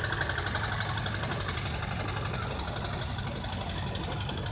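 An engine on the procession float running steadily with a low hum. A rapid, fine, pulsing higher sound rides above it, its lower part fading out about a second and a half in.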